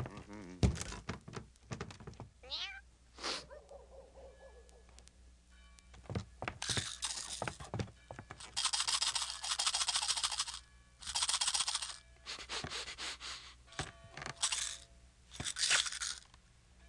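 Cartoon sound effects: a cat meowing, with sharp knocks. From about six seconds in come several long bursts of harsh, hiss-like noise, each a second or two long.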